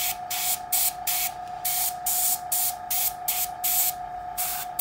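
Gravity-feed airbrush spraying thinned paint in short hissing bursts, about two to three a second, as the trigger is pressed and released, over a steady hum.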